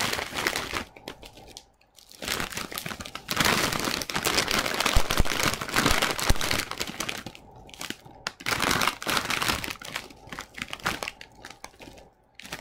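A plastic snack bag of Quaker Cheddar Rice Crisps crinkling as it is handled and turned in the hands, in irregular bursts with a brief pause about two seconds in.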